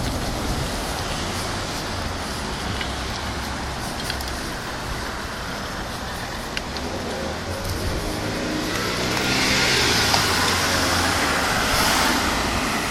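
Road traffic: a car's engine and tyres go by close at hand, the engine note coming up about eight seconds in and the tyre hiss loudest around ten to twelve seconds, over a steady background of road noise.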